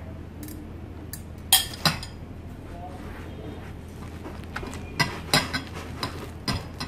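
Two sharp clinks of crockery against a glass bowl as beaten egg is poured in, then hands mixing egg into flour in the glass bowl, with scattered light knocks and clicks on the glass near the end.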